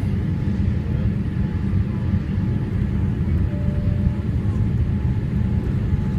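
Steady low rumble of jet engine and airflow noise heard inside the cabin of a Boeing 787-8 descending on approach with its flaps extended.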